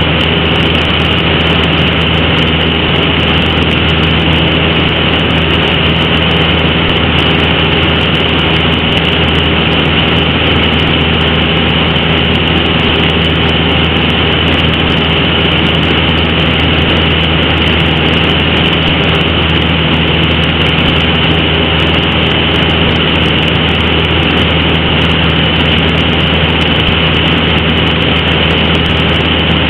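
Light propeller aircraft's engine and propeller droning steadily, heard from inside the cabin.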